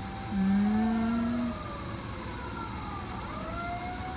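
Fire engine siren wailing, its pitch sliding slowly down and then back up. A loud, low, steady tone sounds shortly after the start for about a second.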